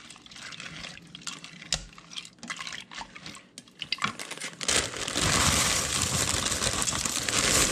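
A wooden spoon stirring a creamy liquid in a stainless steel pot, with wet sloshing and small clicks. About two-thirds of the way in, dry egg noodles are poured from a bag into the pot, a loud dense rustling rush that lasts about three seconds.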